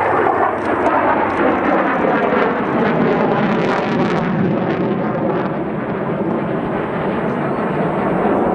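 Two MiG-29 Fulcrum fighter jets passing overhead in formation, the noise of their twin turbofan engines loud and steady, with a slow sweeping shift in tone partway through.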